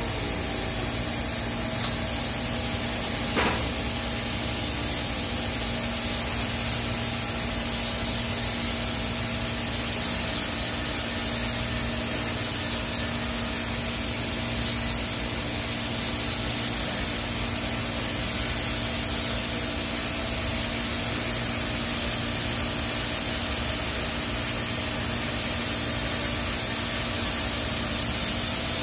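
TIG welding arc on a stainless steel pipe root pass: a steady hiss with a faint even hum underneath and one brief tick about three and a half seconds in.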